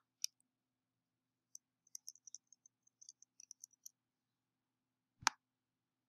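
Quiet computer mouse clicks: a sharp click at the start, a run of small light ticks over a couple of seconds, then a single louder click near the end.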